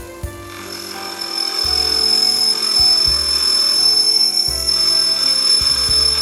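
Watchmaker's lathe starting up and running, with a steady high whine that comes in about half a second in and holds, over background music.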